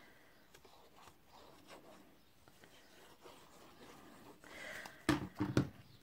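Soft rustling and handling of a sheet of craft paper as liquid glue is squeezed onto it, then a short rustle as the paper is moved and two sharp knocks about half a second apart near the end, as the glue bottle is set down and the paper laid onto the card on a cutting mat.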